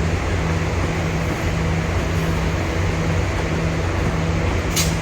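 Idling train at a terminal platform: a steady low rumble and hum with a low tone that cuts in and out about once or twice a second. A brief sharp tick comes near the end.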